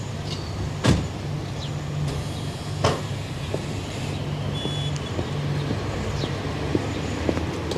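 A car door shut with a solid thump about a second in, and a second knock near three seconds, over a steady low hum of a vehicle running.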